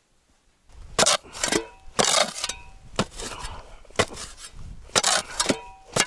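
A short shovel chopping and scraping into frozen ground, starting about a second in: a hard strike every half second to second, some blows leaving a brief metallic ring. The digging is to free a buried iron conveyor sprocket from ground frozen solid.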